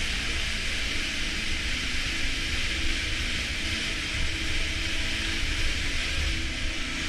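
Steady rush of a tall waterfall falling close by: a dense hiss of falling water and spray over a deep low rumble.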